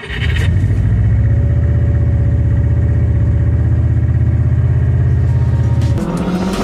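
Diesel engine of an LMTV military truck idling with a steady low throb, which stops about six seconds in.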